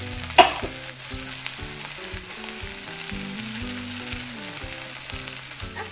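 Noodles and mushrooms cooking with a steady sizzle as the noodle seasoning is stirred in. About half a second in, one short, sharp sound sweeps quickly down in pitch; it is the loudest moment.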